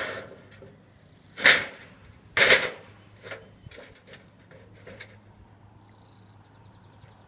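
Sharp knocks on a sheet metal chimney rain cap and crown flashing as it is fitted, the two loudest about a second and a half and two and a half seconds in, with lighter taps after. Near the end, a bird gives a high, rapid trill of about ten pulses a second.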